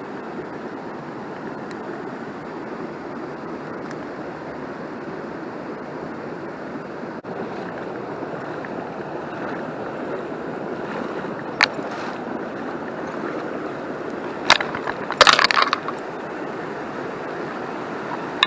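Stream water flowing steadily over rocks. A sharp click comes about two-thirds of the way through, then another, and a short clatter of clicks follows near the end.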